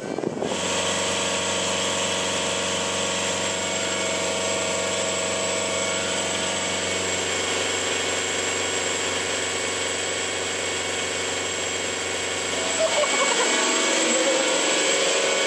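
Inboard marine diesel engine running at a steady speed, turning the propeller shaft through a new Sigma Drive coupling on new engine mounts, with a smooth even note. A man laughs briefly near the end.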